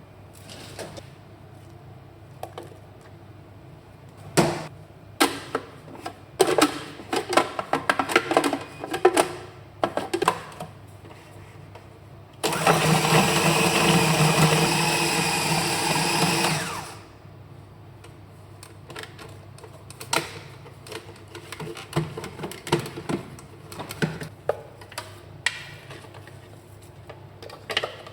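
Electric kitchen blender running steadily for about four seconds in the middle, starting and stopping abruptly. Before and after it come scattered clicks and knocks of kitchen handling.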